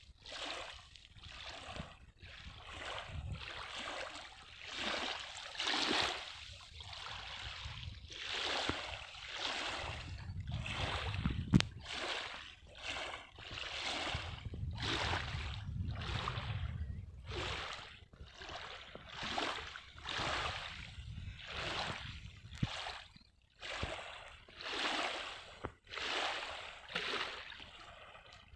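Small waves lapping at a lake's stony shore, a soft wash about once a second, with a low rumble of wind on the microphone for several seconds in the middle. A single sharp tap about a third of the way through.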